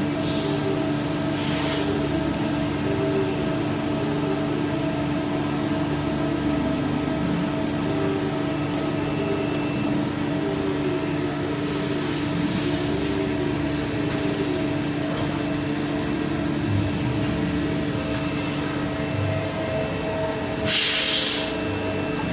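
CNC machine running with a steady hum of several fixed tones, broken three times by short hisses, the longest near the end.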